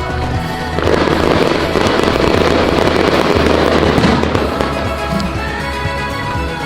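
Fireworks crackling densely for a few seconds, starting about a second in, over music that plays throughout.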